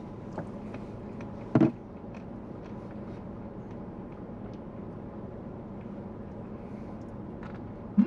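Steady low hum inside a parked car, with faint small clicks of plastic spoons in paper Blizzard cups. One brief louder sound comes about a second and a half in.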